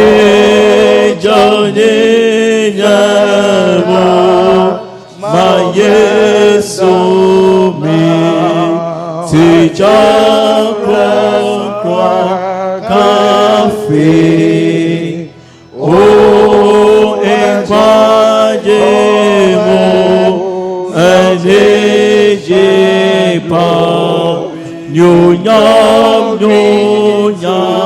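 Singing in a slow church song: long held notes in phrases of a few seconds, with brief pauses between phrases.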